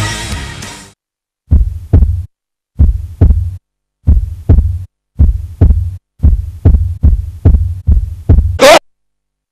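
Music fading out, then a heartbeat sound effect: deep double thumps, the pairs coming faster and faster. It ends in a sudden sharp burst, the loudest sound, and cuts off.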